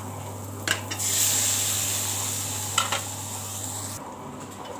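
Onions frying in oil in a kadai, with clicks of a steel spatula on the pan. About a second in, a sudden loud sizzle as chopped tomatoes go into the hot oil, fading over the next few seconds.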